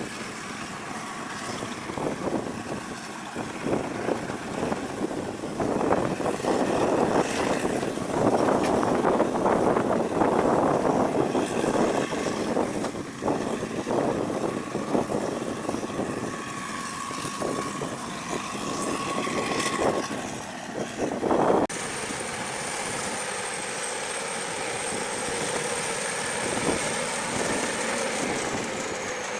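Combine harvester running while unloading rice into a truck: a steady machinery drone with a rushing noise and a thin high whine. It grows louder in the middle and shifts abruptly about three-quarters of the way through.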